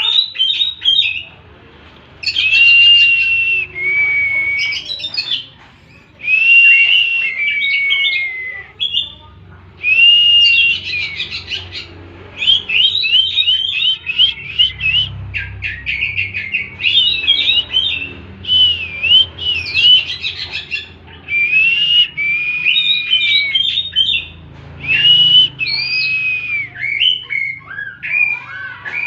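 Oriental magpie-robin (kacer) singing in loud whistled phrases: some long sliding notes, others quick runs of short notes, with short pauses between phrases.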